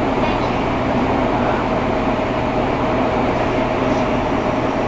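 Interior running noise of a Fukuoka City Subway 2000 series train: a steady rumble with a constant mid-pitched hum over it, holding an even speed.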